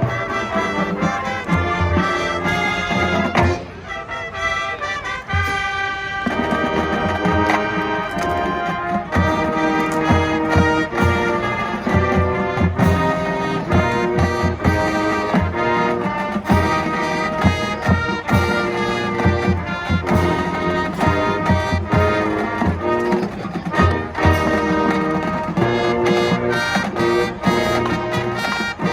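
Marching band playing: massed brass (trumpets and trombones) over drums keeping a steady beat, with a brief softer passage about four seconds in before the full band comes back in.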